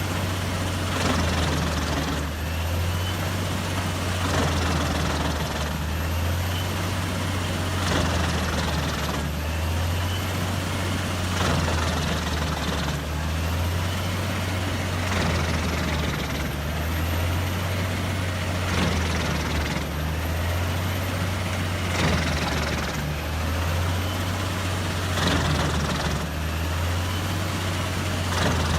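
Heavy tree-chipping machine running steadily, a deep engine hum under a noisy grinding wash that swells in a regular cycle about every two seconds.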